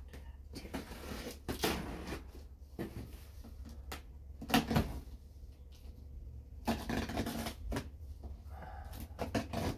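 Cardboard rubbing and scraping as hands work inside a double-boxed shipping carton, pushing flaps and pulling at the inner box, in irregular bursts with the loudest about halfway through.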